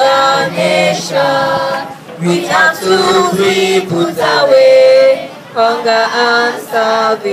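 A group of schoolchildren singing together in chorus, a song of held notes sung in phrases with short breaks between them.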